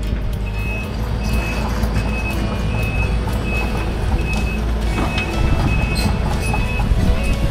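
Case 145 excavator's diesel engine running steadily while its travel alarm beeps about twice a second, the beeping stopping near the end.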